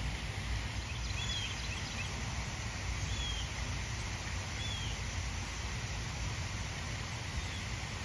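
A few short, high bird chirps, a cluster about a second in and single ones around three and four and a half seconds, over a steady low rumble and hiss of background noise.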